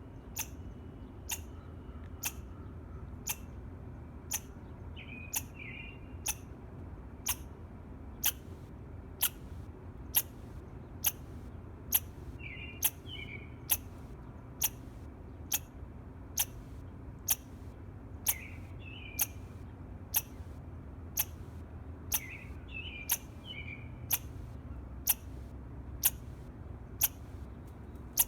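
Squirrel chirping: short, sharp chirps repeated steadily about once a second. A few brief bird calls come in between them now and then.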